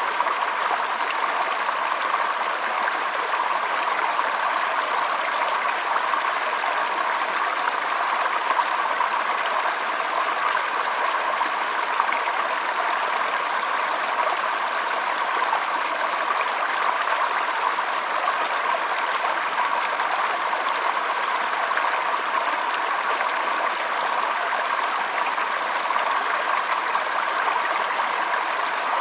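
Flowing water, a steady, unbroken rush.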